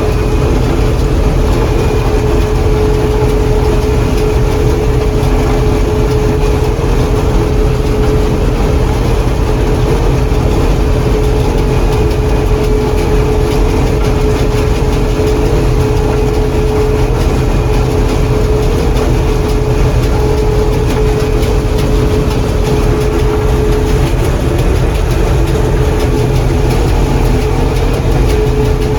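John Deere 4400 combine running steadily at working speed, a constant low engine rumble with a steady whine over it that fades for a few seconds near the end.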